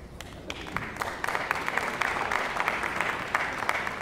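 Audience applauding, swelling about a second in and beginning to fade near the end.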